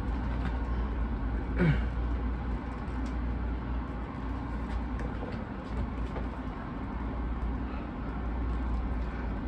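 Faint crinkles and ticks of shrink-wrap plastic as fingers pick at the edge of a wrapped vinyl box set, over a steady low room hum. A brief murmur of a voice about a second and a half in.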